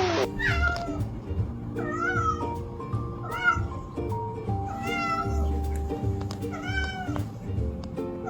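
A domestic cat meowing repeatedly, about six short meows that rise and fall in pitch, roughly one every second and a half, over background music with a steady beat.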